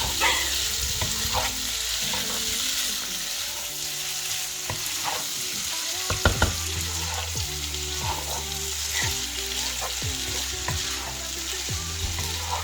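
Hokkien-style noodles and pork belly sizzling in a hot pan as they stir-fry, with scattered clicks and knocks of tongs against the pan. The loudest knocks come about halfway through.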